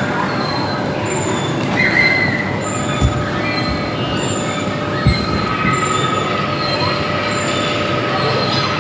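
Steady din of a busy indoor play centre, a dense hubbub with a faint high whine running through it. Two dull thumps about three and five seconds in.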